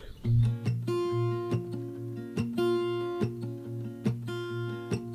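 Background music: acoustic guitar strumming chords at a steady beat.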